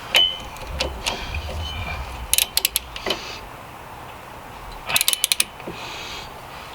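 Socket ratchet wrench clicking in two short quick runs, about two and a half and five seconds in, with scattered single metallic clicks between, as it works a rear hub assembly mounting bolt.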